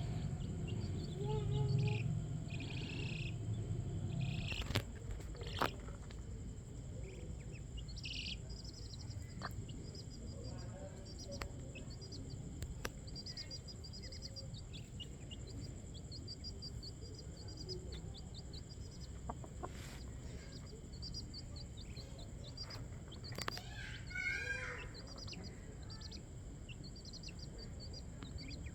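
A chicken hen clucking and a chick peeping in many short, high, repeated calls, over a steady high insect drone.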